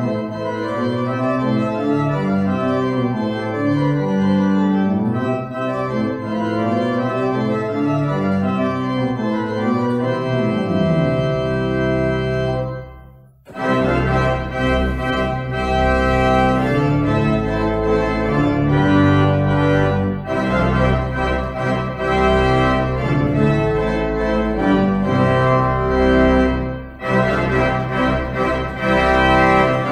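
Church organ playing sustained chords. About 13 seconds in the sound dies away briefly, then resumes fuller, with deep bass notes under the chords.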